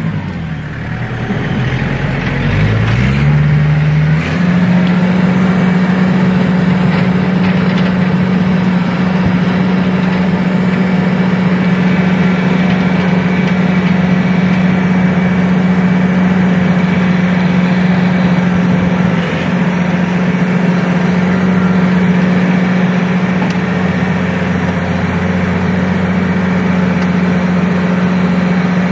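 Tractor engine running under load while pulling a rear-mounted grader blade through dry pond-bed dirt. The engine speed drops and climbs back up in the first few seconds, then holds steady.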